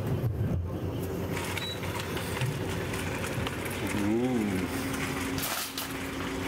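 Steady low mechanical hum of a yacht's onboard machinery, with a few constant tones in it. About four seconds in, a short wordless vocal sound rises and falls in pitch.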